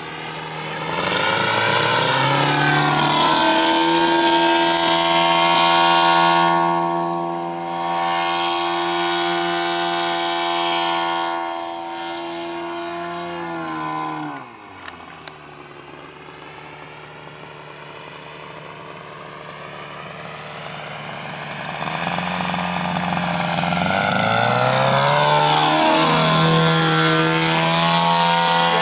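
Engine and propeller of a 4-metre radio-controlled An-2 biplane model flying overhead: a steady pitched engine note that sweeps in pitch as the plane passes. It drops in pitch and fades about halfway through, then swells again over the last several seconds as the plane comes back.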